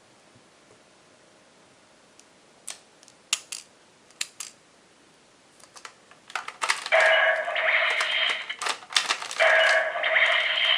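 Plastic clicks as a Jyudenchi toy battery is handled and loaded into a Kyoryuger toy, followed by loud electronic sound effects from the toy's small speaker in two stretches, a short break about two-thirds of the way through.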